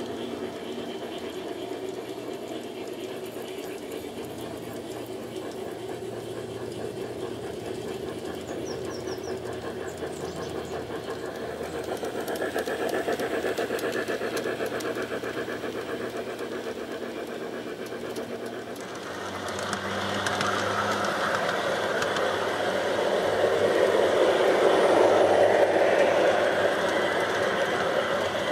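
LGB G-scale model trains running on garden track: a steady whirr of small electric motors with the rattle of wheels on the rails, growing louder from about two-thirds of the way through as a train runs close by.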